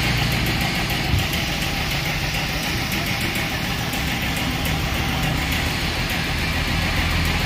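Background guitar music over a steady low hum, with a single short knock about a second in.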